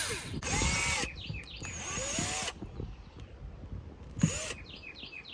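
Ryobi cordless drill run in three short bursts, each spinning up and winding down, as a small bit drills paint out of the holes in a through-hull fitting on a boat hull.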